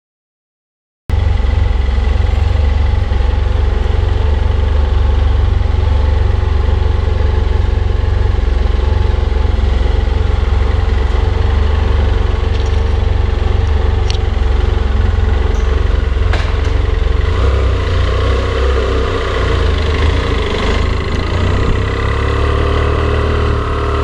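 After a second of silence, a BMW F800 ST's parallel-twin engine runs steadily, heard from a camera mounted on the motorcycle, with a heavy low rumble. Its sound varies a little in the last few seconds as the bike moves off along the street.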